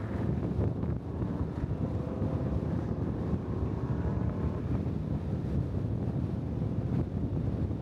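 Wind buffeting the microphone of a small camera clamped to the outside of a moving vehicle, over steady road and tyre noise at highway speed.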